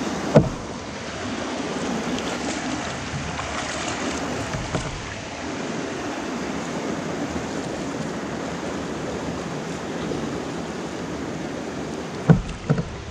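Water rushing over a shallow riffle around a canoe being paddled through. There is a sharp knock about half a second in and a few more near the end.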